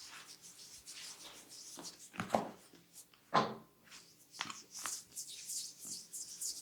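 Head massage: hands rubbing and swishing over skin and hair, with two louder short hits about two and three and a half seconds in.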